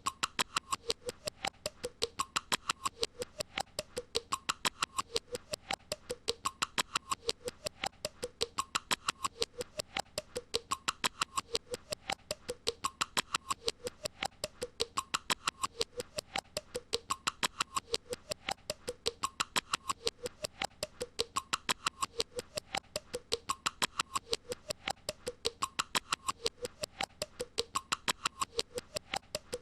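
A looped, repetitive squeaky sound: fast, even clicking with a short squeak about once a second, repeating unchanged.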